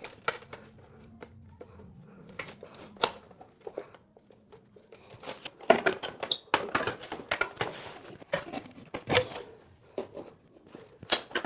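Tin snips cutting sheet-metal vent pipe: a run of sharp metallic snips and clicks, sparse at first, then coming thick and fast over the second half.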